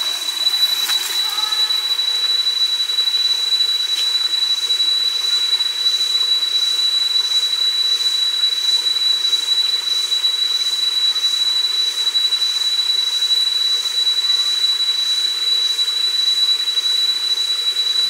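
Cicadas droning: one loud, steady high-pitched tone that never breaks, with a fainter rhythmic pulsing call above it, over the wash of a shallow forest stream.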